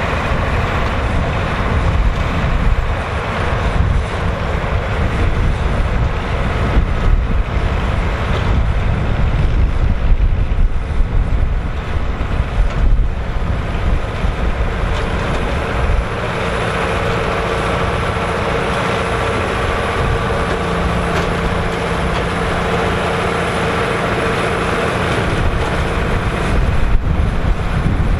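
Massey Ferguson 3070 tractor's diesel engine running, a loud low rumble that is uneven at first and settles about halfway through into a steadier drone with a clear hum.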